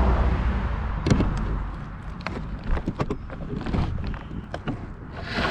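A low engine rumble fades out over the first two seconds, followed by scattered light knocks and clicks.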